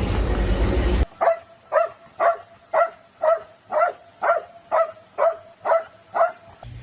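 A dog barking over and over at an even pace, about two barks a second, eleven barks in all. The barking is preceded by about a second of loud rushing noise.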